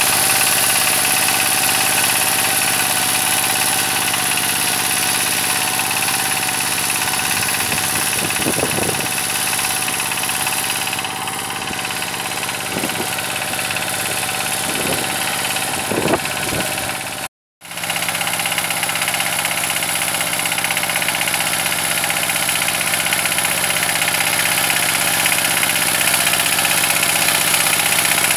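ZUBR 12 hp walk-behind tractor's water-cooled single-cylinder diesel running steadily under load, driving its rotary tiller through the soil. The sound cuts out for a moment about two-thirds of the way through.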